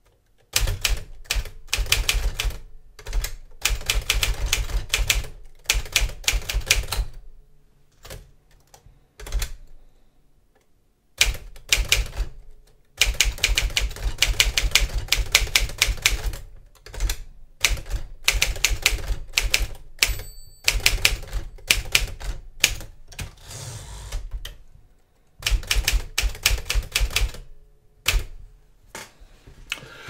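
Smith-Corona Silent-Super manual typewriter being typed on: runs of rapid keystrokes, several a second, broken by short pauses. A brief ringing tone sounds about twenty seconds in.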